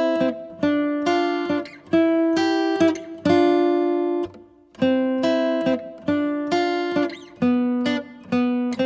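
Background music: an acoustic guitar picks a melody, each note starting sharply and ringing away.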